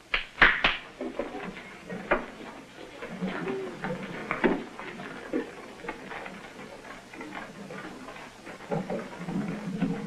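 A group of children's footsteps shuffling and scattered knocks as they walk out between wooden tables and benches. A few sharp knocks about half a second in are the loudest.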